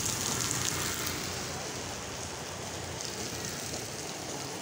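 Steady rain falling on a wet street: an even hiss of drops, a little louder in the first second.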